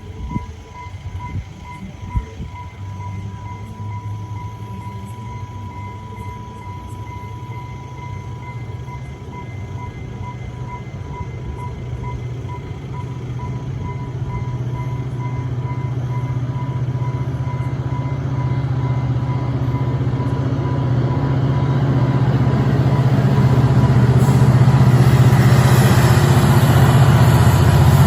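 Class M11 EMD diesel-electric locomotive approaching, its engine drone growing steadily louder through the second half. A level-crossing alarm beeps rapidly throughout.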